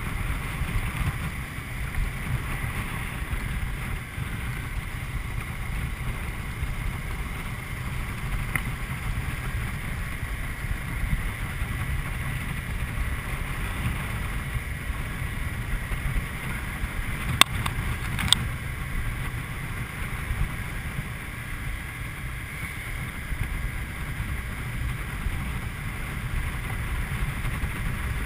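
Wind buffeting a GoPro camera in its housing on a moving Honda CBR250R, with the bike's 249 cc single-cylinder engine running underneath at a steady pace. There are two sharp clicks a little over halfway through.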